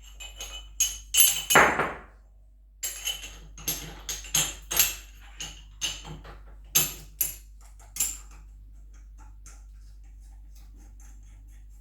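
Metal tools and parts clinking and knocking against each other during motorcycle assembly: irregular sharp, ringing clinks, with one longer scraping sound near the start. After about eight seconds only faint ticks remain over a low hum.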